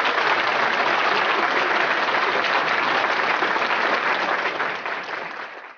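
A crowd applauding: dense, continuous clapping with no single claps standing out. It eases slightly near the end and then cuts off abruptly.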